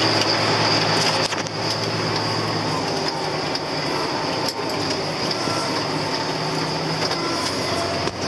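John Deere tractor running steadily, heard from inside the cab: a constant engine hum with a steady high whine over it and some rattling. The engine note shifts slightly near the end.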